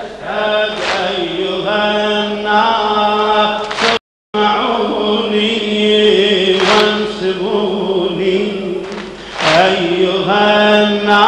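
A male voice chanting a Shia mourning lament (latmiyya) in long held notes over a crowd, with sharp strikes about every three seconds, the mourners beating their chests. The audio drops out completely for a moment about four seconds in.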